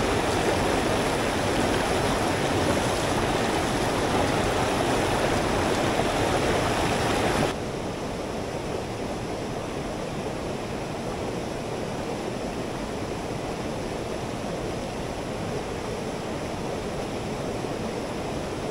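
Mountain headwater stream rushing steadily over rocks, running high after heavy rain. About seven seconds in, the rush cuts abruptly to a quieter, duller sound.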